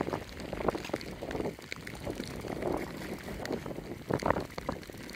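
Wind buffeting the microphone over sloshing shallow water, with irregular splashes as a hooked fish thrashes at the surface while it is reeled in.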